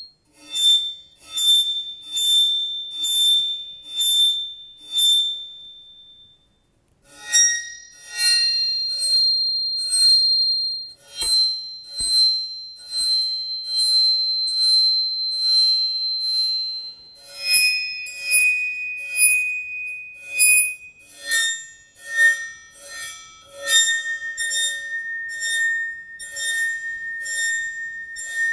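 A square metal Chladni plate clamped at its centre, bowed again and again along its edge, ringing with a high steady tone; each bow stroke starts with a short rasp. After a short break, the tone jumps to new pitches a few times, ending much lower. Each pitch is a different resonance of the plate, set by where it is bowed and where fingers damp it, and each gives a different figure of sand along the still lines.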